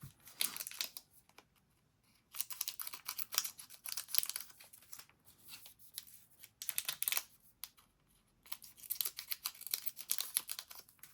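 Foil trading-card booster packs crinkling and tearing as they are opened and the cards handled, in several crackly bursts with short pauses between.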